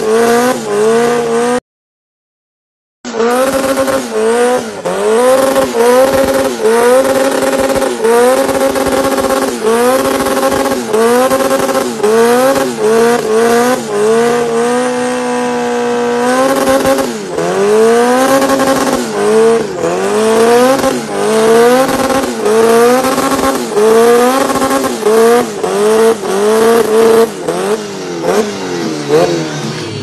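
Honda car engine revved hard again and again, its pitch climbing and falling back about once a second, held steady at high revs for a couple of seconds near the middle, during a smoky burnout. The sound cuts out completely for about a second early on.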